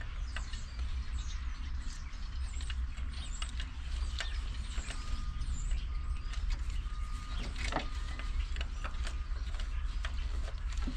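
Light metallic clicks and scrapes of small engine parts and hand tools being handled as a part is worked into place by hand, over a steady low hum.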